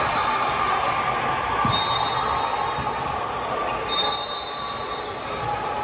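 Indoor volleyball game sound: a steady hubbub, a ball thud about a second and a half in, and two high, steady squeals of about a second each.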